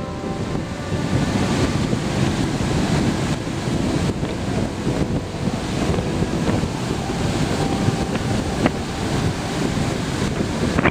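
Wind buffeting the microphone over ocean surf washing onto the beach, a dense, gusty rush that is heaviest in the low end.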